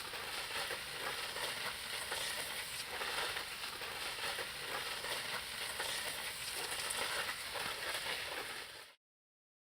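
A steady crackling hiss that cuts off abruptly about nine seconds in.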